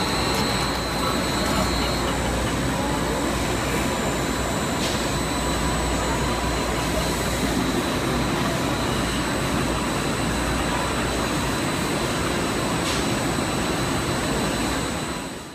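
Steady loud machine-like noise with a thin high whine running through it, fading out abruptly at the very end.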